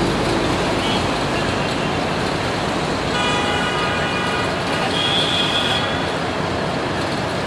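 Steady engine and traffic rumble around a diesel locomotive moving slowly through yard points. A horn sounds about three seconds in and holds for a couple of seconds, with a higher thin tone over its last part.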